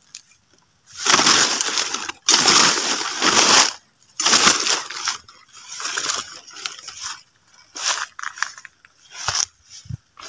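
Footsteps pushing through leafy undergrowth, with leaves and stems rustling and crunching in irregular bursts of a second or so.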